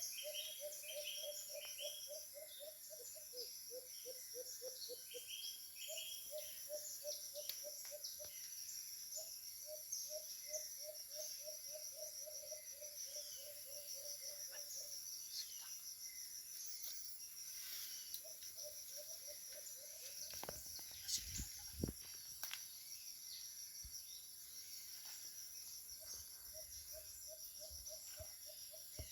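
Forest ambience: insects trill steadily, while a bird repeats runs of quick low notes, about six or seven a second, each run lasting a few seconds, with scattered higher chirps. A few low thumps come about twenty seconds in.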